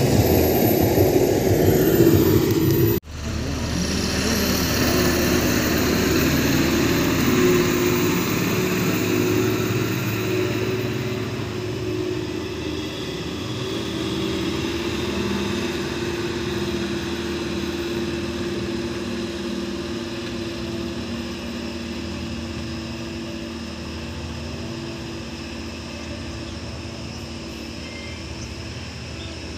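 Tata BS6 tipper truck's diesel engine running as the truck drives off and climbs a slope, growing steadily fainter as it moves away. The sound breaks off sharply about three seconds in.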